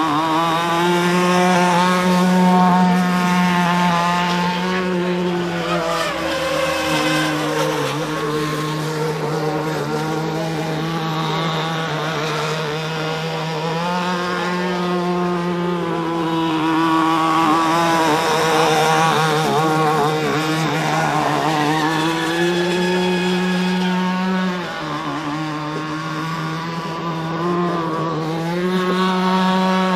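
Twin electric motors of an RC racing boat running at speed on a 6S battery, a steady whine with several harmonics. The pitch drops briefly and comes back up a few times as the throttle eases and opens again.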